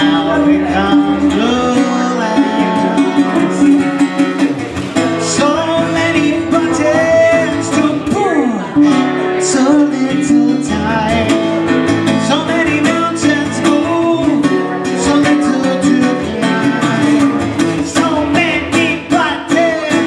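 Modified Alvarez MSB1 acoustic piccolo bass guitar played live, plucked notes ringing steadily, with a man's voice singing along into the microphone.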